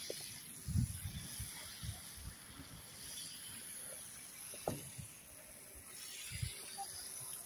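Steady outdoor hiss with irregular low thumps and rustles from a phone being carried by someone walking across sand. A short pitched voice-like sound comes about halfway through.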